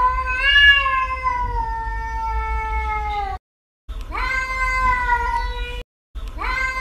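A cat yowling in long, drawn-out calls. The first lasts over three seconds with a slight fall in pitch. Two more like it follow, each broken off suddenly by a moment of total silence.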